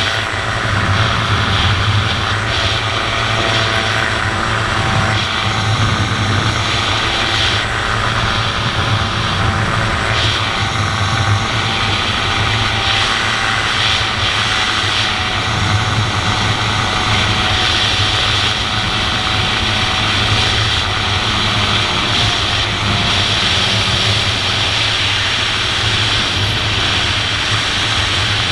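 Dominator gyroplane's pusher engine and propeller running steadily, with wind rushing past the open cockpit, through a landing approach low over the runway.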